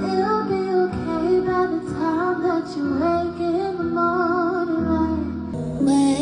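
A woman singing an R&B melody with sliding, wavering runs over instrumental backing; the backing changes near the end.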